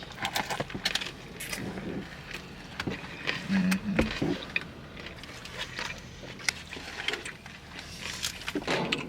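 Close-miked eating of burrito tacos: chewing with scattered clicks and crackles, and the rustle of the food being handled.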